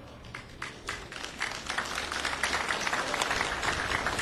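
Crowd applauding, beginning with a few scattered claps and building within about a second and a half to steady clapping.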